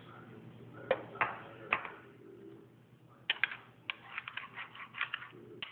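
Homemade slime being stirred and worked in a small container: a few separate sticky clicks, then a quick irregular run of them from about three seconds in.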